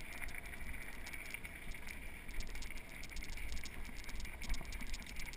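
Mountain bike rolling over a loose gravel and stone track, tyres crunching with many small clicks, over a low wind rumble.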